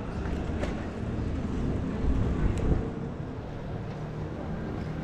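Bicycle tyres rolling over brick paving, heard as a steady low rumble with a few small clicks. The rumble swells about two seconds in.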